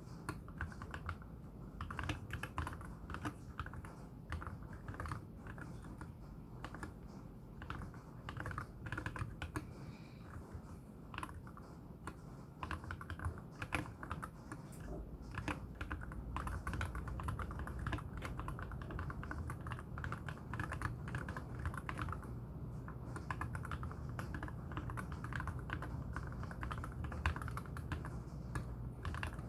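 Continuous typing on a MelGeek Z70 Ultra mechanical keyboard with lubed KTT Wine switches and tall MA-profile spherical keycaps: a steady stream of keystrokes with a deep, wooden-block sound.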